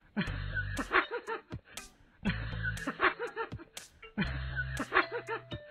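A short cartoon chuckle sound effect, repeated three times in an identical two-second loop.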